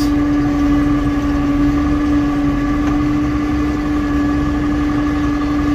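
Tractor engine running at a steady speed, heard from inside the closed cab as an even drone with one strong, constant humming tone.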